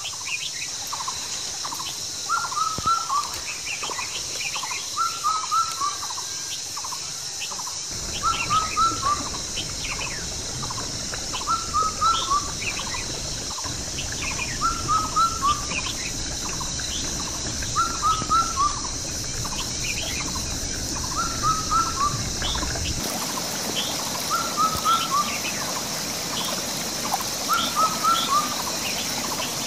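A songbird repeating a short chirped phrase of three or four quick notes about every two seconds, over a steady high hiss.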